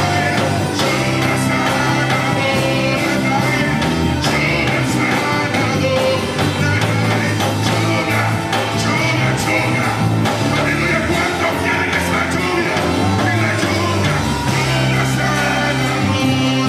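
Live worship-band music, loud and steady, with a man singing lead through a microphone over drums and bass.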